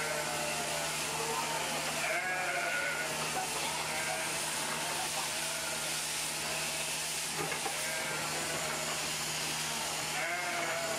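A flock of merino ewes and lambs bleating, many calls overlapping, over a steady low hum.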